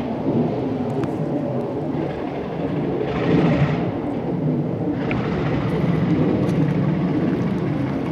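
Alco diesel locomotive approaching with a ballast train, its engine rumbling steadily, with a louder hiss for about two seconds starting about three seconds in.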